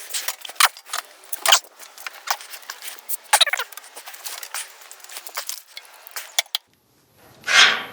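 Clattering handling noise of parts being moved and knocked: an irregular run of sharp clicks, knocks and rattles, a brief pause, then a short rush of noise near the end.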